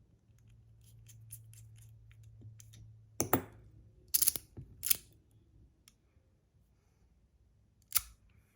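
Small hard parts of a magnetic fidget slider clicking as it is handled and worked on: faint light ticks at first, then a few sharp clicks around the middle and one more near the end.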